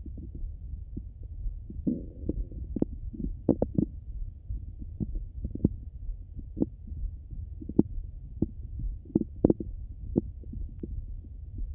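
Bowel sounds of a hungry stomach heard through a stethoscope: irregularly spaced short clicks and pops, with a brief gurgle about two seconds in, over a low steady rumble.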